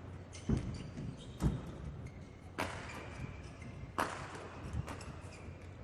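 Badminton play on an indoor court: two sharp racket strikes on the shuttlecock about a second and a half apart, among heavy footfalls and faint shoe squeaks on the court floor.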